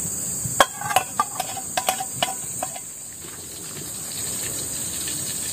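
A metal utensil tapping and scraping in a wok with a little oil in it, a quick run of sharp ringing clicks in the first three seconds. Under it runs a steady high drone of insects.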